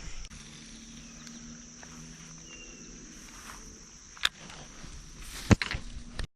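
Faint steady high insect drone, broken by two sharp knocks about four and five and a half seconds in; the sound cuts off abruptly near the end.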